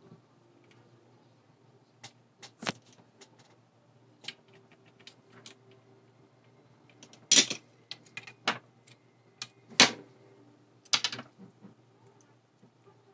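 Light, irregular clicks and taps of small hand tools, a soldering iron and tweezers, against a circuit board, with a few sharper clicks in the second half, over a faint low hum.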